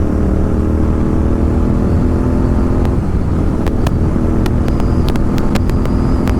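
Royal Enfield Continental GT 650's 648 cc parallel-twin running through a Red Rooster aftermarket exhaust while riding, its note easing slightly lower at first. From about halfway, a string of sharp exhaust crackles and pops breaks through the engine sound.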